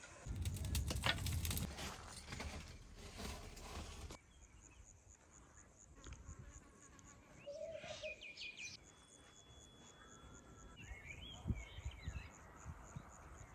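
Faint outdoor insect chirring: a steady, evenly pulsing high buzz with a few short chirps over it. It is preceded by about four seconds of louder rustling and clicks.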